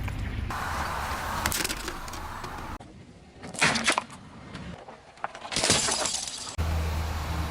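Objects cracking and breaking as a car tyre rolls over them, in several short cut-together takes, with the two loudest sharp cracks about three and a half and five and a half seconds in.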